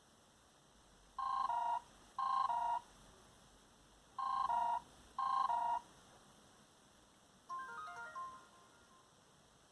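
Samsung Galaxy Y phone ringtone: an electronic two-note ring, each burst stepping from a higher note to a lower one, sounding in two pairs like a telephone's double ring. About seven and a half seconds in, a softer run of quick melodic notes begins.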